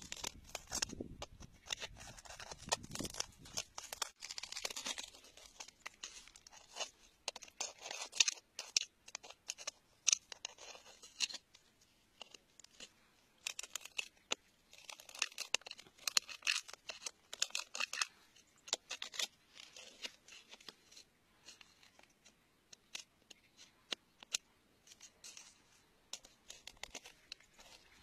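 A metal pick scraping and scratching at wet rock and mud, in irregular gritty bursts mixed with small sharp clicks, with quieter stretches in between.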